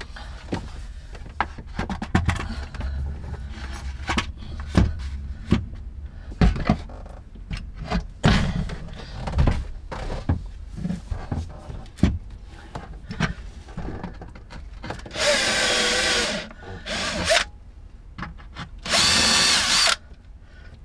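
A run of knocks and taps as the charge controller is handled and held against the wooden panel. Then a Bosch cordless drill runs in two bursts near the end, drilling the controller's mounting in.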